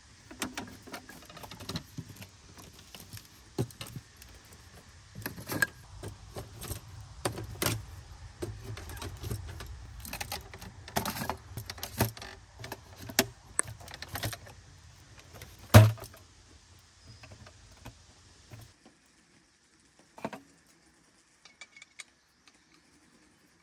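Folding aluminium camp table being opened and its metal legs pulled out and locked: repeated clicks, clanks and rattles of metal tubing and latches, with one sharp knock about two-thirds of the way through. Only a few light clicks in the last few seconds.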